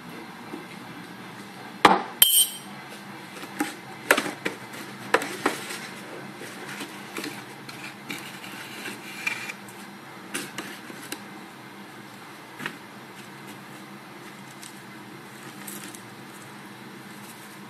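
Kitchen items handled on a countertop: two sharp knocks about two seconds in, then scattered taps, clinks and rustling as a paper tea bag is picked out of a cardboard tea box.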